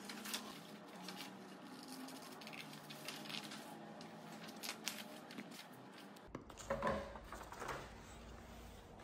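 Large paper cut-outs rustling and tapping as they are handled and laid out. A little after six seconds the background changes to a low steady hum, with a few louder paper rustles just after.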